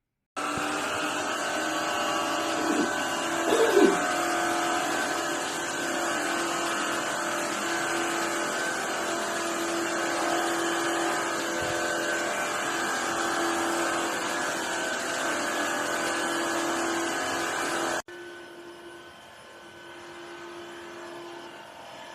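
Tineco iFloor 2 cordless wet-dry floor washer running: a steady motor whir with a hum, and a couple of brief louder sounds about three to four seconds in. About eighteen seconds in the sound drops suddenly to a quieter level.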